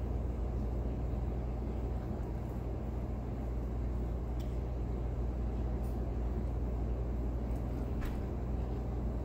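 Steady low rumble and hum of a vehicle, with a few faint light clicks.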